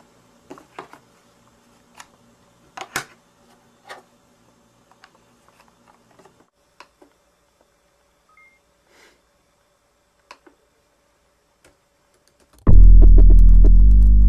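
A few faint clicks and small knocks from hands handling a small device. About two seconds before the end, loud synthesizer music cuts in with deep held chords.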